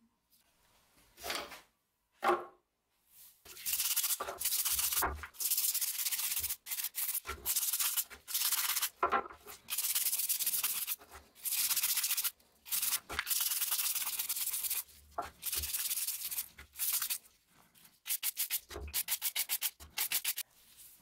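Stiff-bristled scrub brush scrubbing a plastic tool handle in a tray of soapy water: a run of scratchy back-and-forth strokes with brief pauses, quickening into rapid short strokes near the end.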